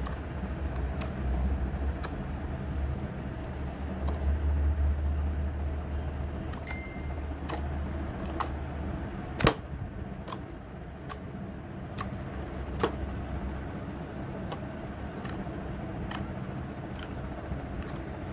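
Fingers poking into slime, making short sharp clicking pops at irregular intervals, about one a second, the loudest about halfway through. A steady low rumble lies underneath and fades out about three-quarters of the way in.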